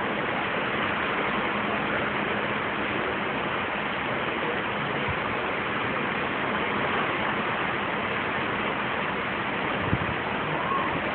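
Steady rushing noise of wind and sea water on the deck of a moving cruise ship, with one light bump near the end.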